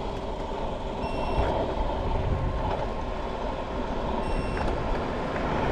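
Electric scooter running at about 20 mph on asphalt: a steady motor whine over tyre noise and wind rumble on the microphone. Two short high-pitched tones come about three seconds apart.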